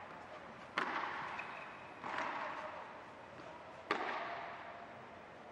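Padel rally: three sharp pops of the ball off the rackets, about a second to two apart, each ringing on in the echoing indoor hall.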